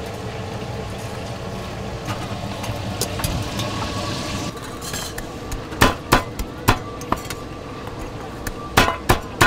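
Cleaver chopping braised duck neck on a thick wooden chopping block: about six sharp chops in two groups in the second half, over a steady background hiss.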